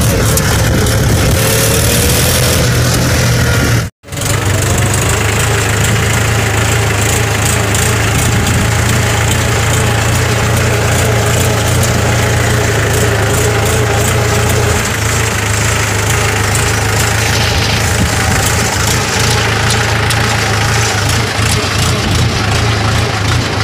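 Tractor diesel engine running steadily while driving, a strong low drone with a broad hiss over it, heard from the driver's seat. The sound cuts out for an instant about four seconds in.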